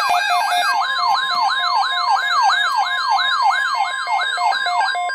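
Electronic siren yelping: a pitch that sweeps down again and again, about three times a second, over a steady high tone, changing to an alternating hi-lo two-tone right at the end.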